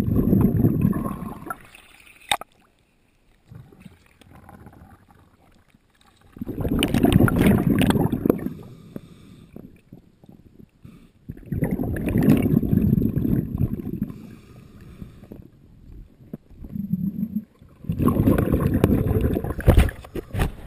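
Scuba diver breathing through a regulator, heard underwater: a loud rush of exhaled bubbles about every six seconds, each lasting about two seconds, with quiet inhalations between. A sharp knock comes near the end.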